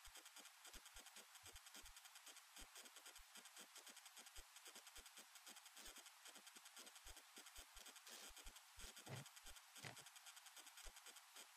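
Near silence: a faint hiss with many faint, irregular crackling clicks.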